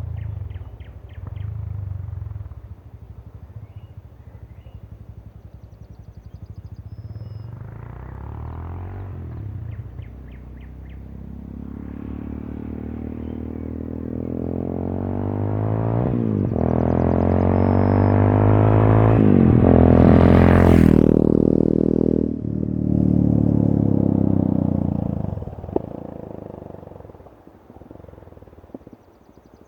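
Yamaha XT660X's single-cylinder four-stroke engine running through its exhaust as the bike accelerates in a flyby. The pitch climbs in several steps with short dips at the gear changes, is loudest about 20 seconds in, then fades away.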